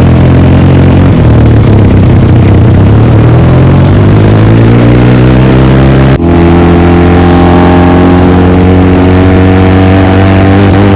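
Motorcycle engine with a loud aftermarket exhaust, its revs climbing steadily under acceleration. There is a brief break about six seconds in, then it pulls up through the revs again.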